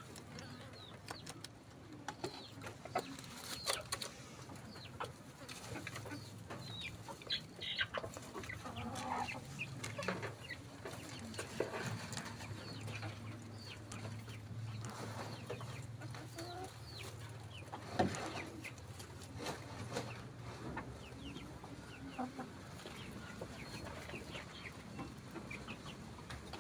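Chickens clucking in the background over many small scattered clicks and rustles.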